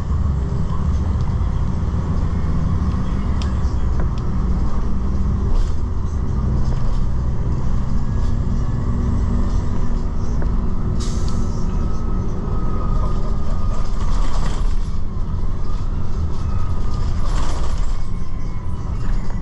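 Airport shuttle driving along a city street, heard from inside: a steady low engine and road rumble with occasional small rattles, and a short hiss about eleven seconds in.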